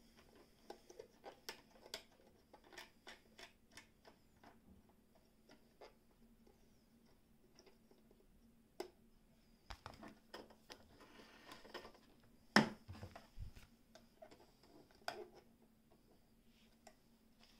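Scattered clicks and small knocks from a Frister & Rossmann 202 sewing machine's stitch-length lever and top selector dial being set by hand, with one louder knock about two-thirds of the way through. A faint steady hum runs underneath.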